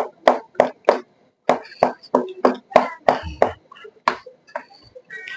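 A rapid run of short knocks, about three a second with a brief pause near the end, from a kitchen utensil working soft food in a pot, as when mashing cooked potatoes and bananas.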